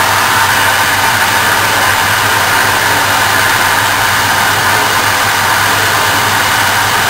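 JET wood lathe and its dust extractor running steadily: an even, loud rushing hum with a low drone underneath.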